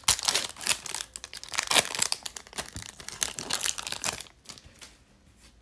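Foil wrapper of a 2020 Topps Update Series baseball card pack being torn open and peeled back, in a rapid run of crinkles and tearing crackles that dies away about four seconds in.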